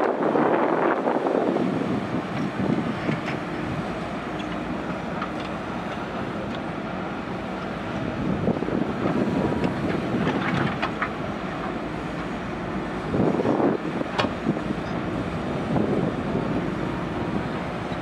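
JCB 3DX backhoe loader's diesel engine running steadily under hydraulic load while the backhoe digs, swelling louder a few times as the bucket works through the soil. A few short knocks sound through it, sharpest about two thirds of the way in.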